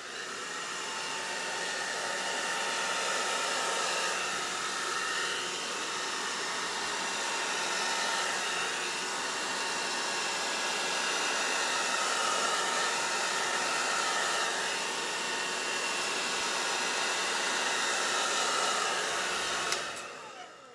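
Handheld hair dryer running steadily, blowing wet acrylic pour paint outward from the centre of the canvas to open a bloom and its cells. It cuts off near the end.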